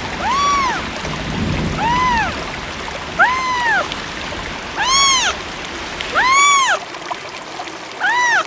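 A fawn bleating: six high cries, each rising then falling in pitch, about one every second and a half, over the steady rush of rain and flood water. The low rumble of the water drops away about two-thirds of the way through.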